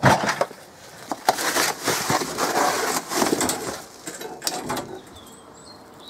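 A wooden shed door being handled and opened: a quick run of wooden knocks, rattles and scrapes, dying away about five seconds in. Faint bird chirps are heard near the end.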